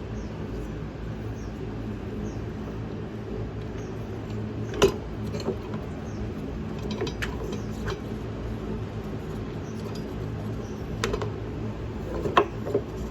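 A few sharp metal clicks and knocks, loudest about five seconds in and near the end, as a motorcycle's front axle is worked through the wheel hub, spacer and speed sensor to line it up with the fork. A steady low hum lies underneath.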